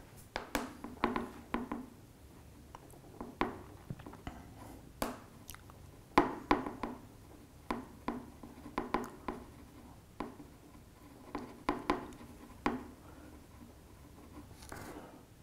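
Metal screwdriver tip scraping hard across a phone's glass back in a scratch test: a long series of short, sharp scrapes and clicks, coming in quick runs with brief pauses between them.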